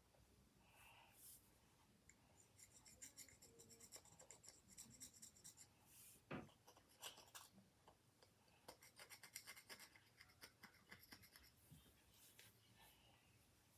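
Faint scraping of crud off the plastic case of a 1950s RCA transistor radio, in two runs of quick, short strokes. A single knock comes about six seconds in.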